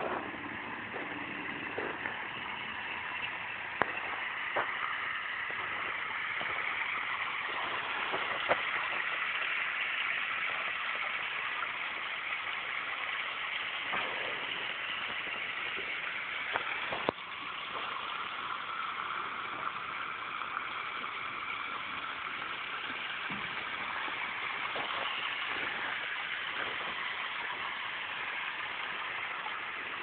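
Water pouring from a garden water feature's two sheer spouts onto river rocks in its basin, a steady splashing hiss, with a few faint clicks.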